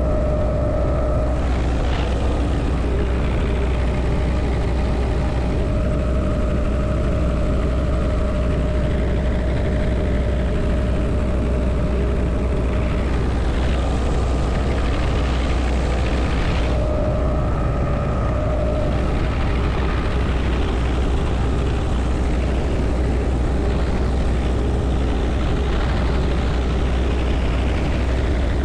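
Helicopter in flight heard from inside the open-door cabin: steady rotor and engine noise with a strong low hum, mixed with wind rushing past the doorway. A faint whine comes and goes over it.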